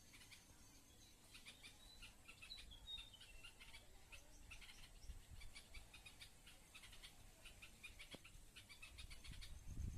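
Faint, rapid chirping of bulbuls, with a few short whistled notes about three seconds in.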